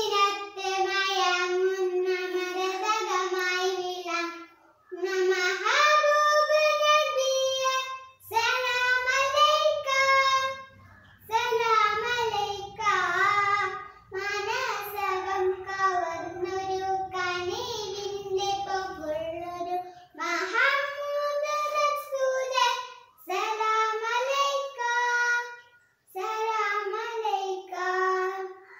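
A young boy singing solo without accompaniment, a melody in phrases of a few seconds with short breaks between them.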